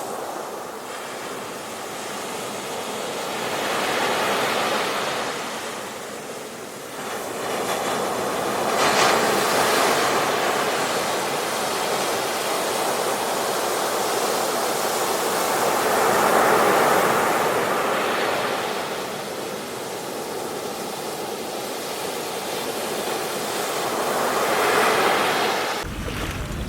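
Ocean surf: waves breaking and washing in, the noise swelling and easing four times. Just before the end it changes abruptly to a different recording with a steadier, deeper sound.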